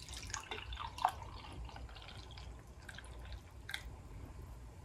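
Coffee poured from a glass coffee-maker carafe into a mug: a faint trickle and splash of liquid, with the strongest splash about a second in.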